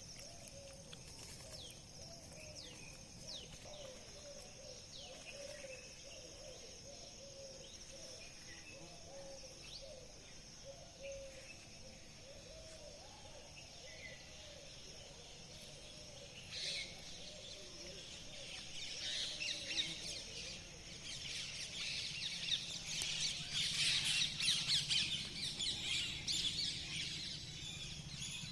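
Birds chirping: scattered high chirps and soft low warbling calls at first, then a dense chattering chorus of chirps that builds and is loudest over the last third, over a faint steady high tone.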